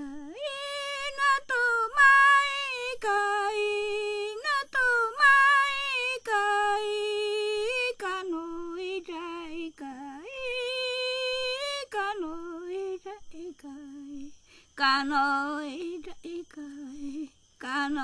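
A Shipibo woman singing solo and unaccompanied. She holds long notes that glide up and down between a few pitches, then moves to shorter, lower phrases in the second half.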